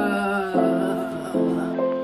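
Soft background music: gentle sustained chords, a new one struck about every half second to second.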